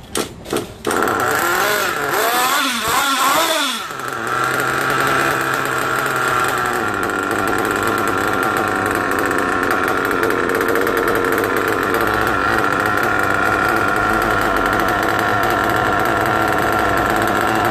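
Small two-stroke nitro glow engine of an RC car firing in a few short bursts, then catching about a second in. It revs up and down for a couple of seconds, then settles to a steady high-pitched run while its carburettor mixture is being set.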